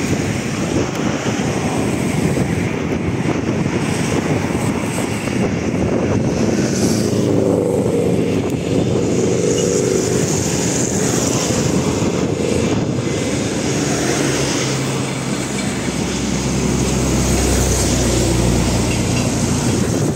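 2TE25KM twin-section diesel locomotive passing under load with a freight train, its diesel engines running with a steady pitched drone, followed by the wagons rolling along the rails. A deep low rumble builds near the end.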